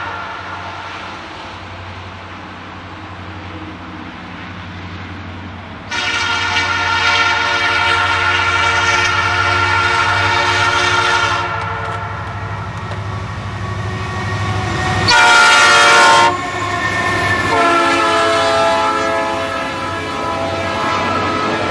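Union Pacific EMD SD70M diesel locomotives with 16-710 prime movers working up the grade, their engines rumbling, as a Nathan P3 horn sounds. There is a long blast starting about six seconds in, a short, very loud blast as the locomotives pass, and a further blast a second later. Near the end come the clacking wheels of the intermodal flatcars rolling past.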